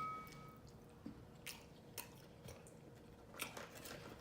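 Faint wet chewing with soft lip-smacking clicks every half second or so, a little more frequent near the end.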